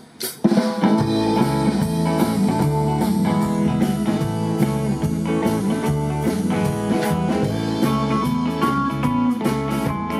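A live band of electric guitars, bass guitar and drum kit playing through amplifiers, the song kicking in about half a second in with a steady drum beat.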